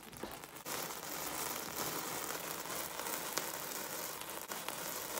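Fountain sparkler candle burning with a steady fizzing hiss and fine crackles, starting to spray about half a second in.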